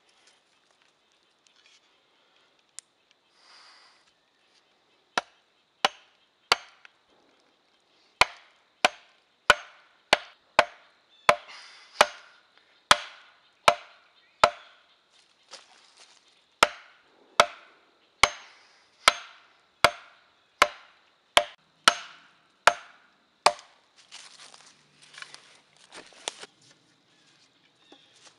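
Sharpened wooden stakes being hammered into the ground with an axe. A few single knocks come first, then a steady run of about twenty sharp wooden blows, a little under a second apart, before rustling near the end.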